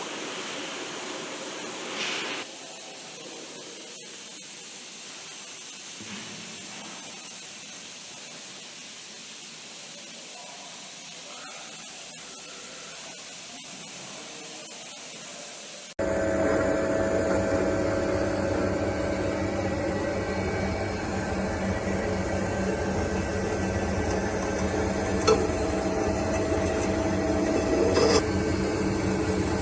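A low steady background noise, with a short hiss about two seconds in. Past the middle it cuts suddenly to the louder, steady hum of a three-roll thread rolling machine running, with a couple of faint clicks near the end.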